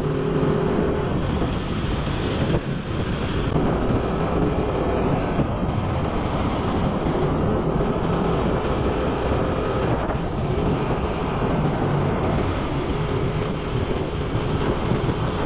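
Yamaha NMAX 2022 scooter's 155 cc single-cylinder engine running steadily at cruising speed, mixed with wind and road noise.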